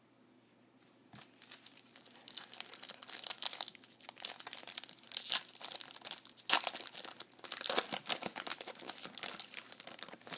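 Plastic wrapper of a trading-card pack being torn open and crinkled, a dense crackling that starts about two seconds in.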